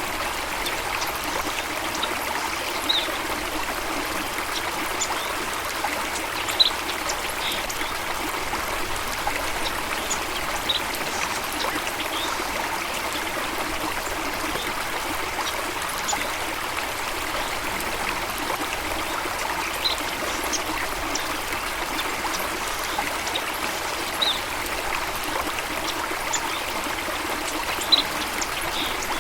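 Steady rush of running water from a stream or waterfall, with scattered brief high bird chirps over it, two of them louder.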